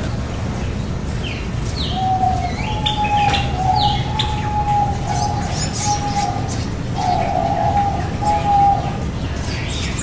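Aviary birds calling: short falling chirps and a run of steady, mid-pitched notes, each under a second long, from about two to nine seconds in, over a steady low hum.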